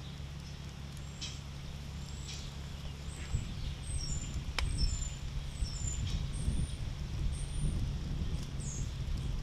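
Songbird chirping outdoors, a string of short high calls, some sliding down in pitch, over a steady low rumble. A single sharp pop, like a crackle from the fire, comes about halfway through.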